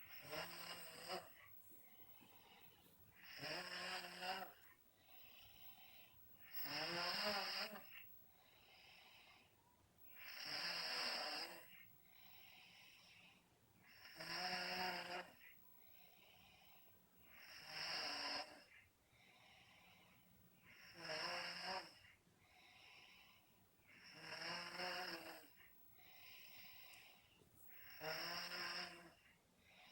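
A person in deep sleep snoring loudly: nine snores, roughly every three and a half seconds, each lasting about a second, with a softer breath out between them.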